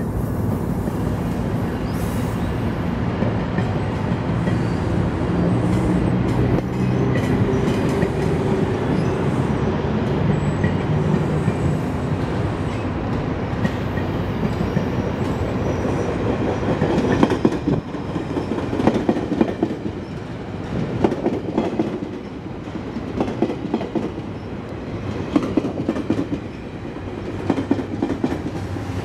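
GO Transit diesel commuter train passing close by. A steady engine drone comes first, then from about two-thirds of the way through the wheels clack over the rail joints in a rhythm.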